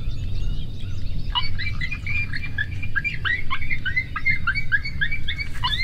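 Coyotes yipping: a quick, overlapping run of short, high, rising-and-falling yips, several a second, starting about a second and a half in.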